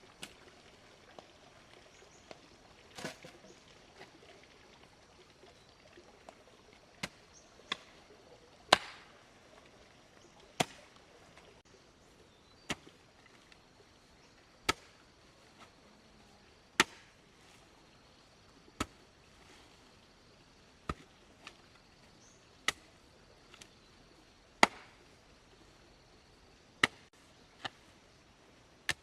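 Sharp, single strikes of a hand tool on wood, at first irregular, then falling about once every two seconds.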